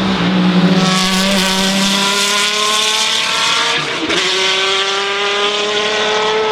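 Race car engine accelerating hard, its pitch climbing through the revs, with one upshift about four seconds in before it climbs again.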